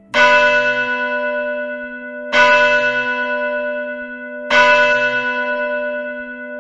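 A bell struck three times, about two seconds apart, each strike ringing out and slowly fading, with a low hum held underneath.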